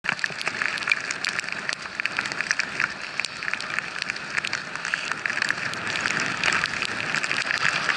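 Skis sliding downhill over fresh powder: a steady hiss of snow with many small crackles and ticks.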